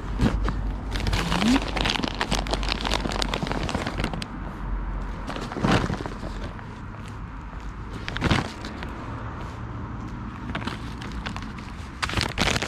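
Crinkling and rustling of a foil-lined paper bag of nuts being handled, in dense crackly spells at the start and near the end, with two louder single rustles about six and eight seconds in.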